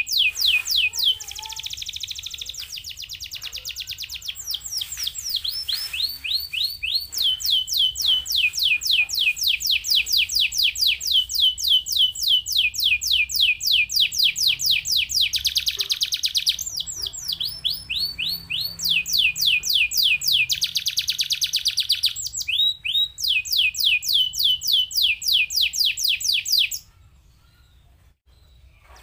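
Domestic canary singing fast rolls of repeated downward-sweeping notes, switching from one rapid phrase to the next every few seconds. The song breaks off suddenly near the end.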